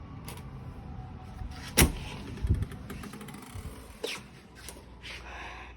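A sharp knock about two seconds in, a duller thump just after, and a few lighter clicks later, over a low steady hum.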